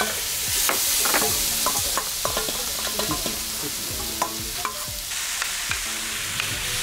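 Marinated shrimp sizzling as they are tipped into a hot stainless-steel pan, with a metal spoon scraping and clinking against the steel mixing bowl again and again.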